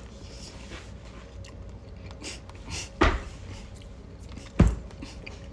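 A person chewing crinkle-cut french fries, with two sharp thumps about three and four and a half seconds in.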